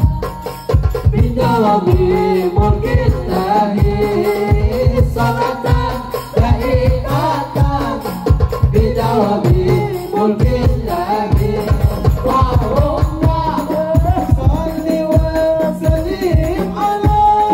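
Two male voices singing an Arabic Islamic syair into microphones, amplified through a PA, over hadrah hand drums beating a steady rhythm.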